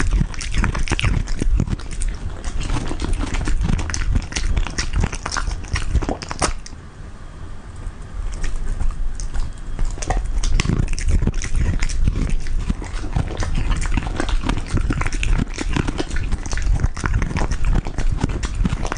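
A Samoyed chewing coconut close to a microphone: dense, irregular crunching and teeth clicks, with a short lull about seven seconds in.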